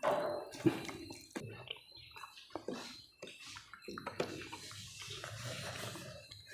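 Eating sounds close to the microphone: irregular small clicks and mouth noises, with a soft hiss in the second half.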